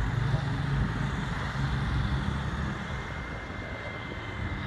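Steady low rumble of outdoor background noise, with a thin steady high tone coming in about halfway.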